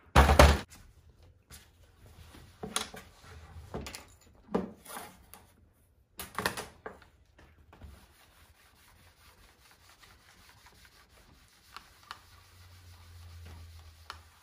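A sharp knock, then several more knocks and rustles as things are handled and set down on the table. After that, a small iron rubs faintly back and forth over quilting fabric on a wool pressing mat.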